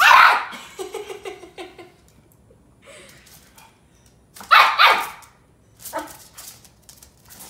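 Chihuahua barking: a loud bark at the start followed by a quick run of short yaps, another loud bark about four and a half seconds in, and a softer one near six seconds.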